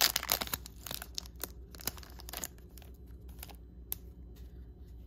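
Plastic trading-card pack wrapper being torn open and crinkled, a dense run of crackles over the first two and a half seconds. After that come a few faint clicks as the cards are handled.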